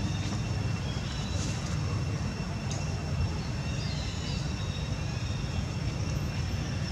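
Steady outdoor background noise: a low, even rumble with a thin, steady high whine over it and a few faint chirps.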